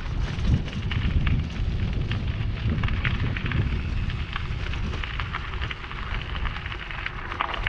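Gravel bike rolling over a narrow stony trail: tyres crunching on stones with scattered clicks and rattles, under a steady low rumble of wind on the camera's microphone.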